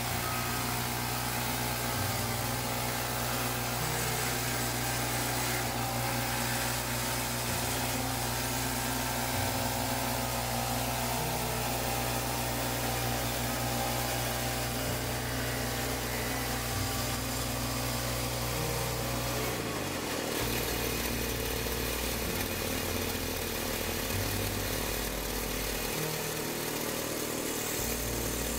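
Woodland Mills HM122 portable bandsaw mill running, its gas engine driving the band blade through a 16 ft pine log. The engine note is steady, then changes about two-thirds of the way through.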